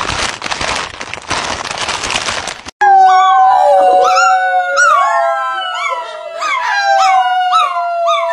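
A harsh noisy sound for the first few seconds. Then a puppy howls along with a person: one long held note with repeated short falling cries over it.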